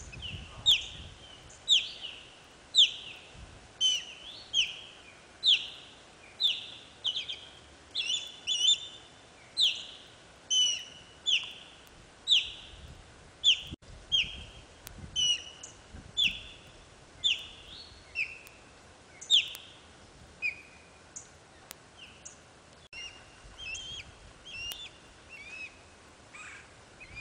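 Osprey calling: a long series of short, sharp whistled notes, each falling in pitch, at roughly one a second.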